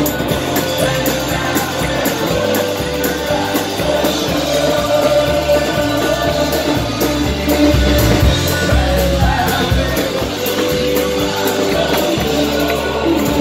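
Live alt-country band playing loud on stage: singing over electric guitar and drums, with a steady beat.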